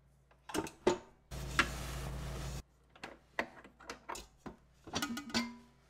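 Clicks and metal clanks from handling a stainless steel stand mixer: its head and dough hook being worked loose, and metal knocking on the steel bowl, a few knocks ringing briefly. A steady low hum sounds for about a second near the start.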